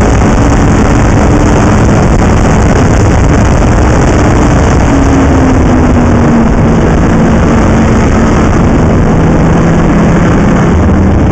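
Snowmobile engine running under way on a snowy trail, loud and unbroken, its pitch falling slowly about halfway through and lower still near the end.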